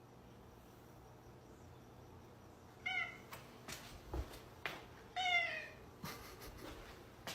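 Domestic cat meowing twice, a short meow about three seconds in and a slightly longer, falling one about two seconds later, with a few light taps in between.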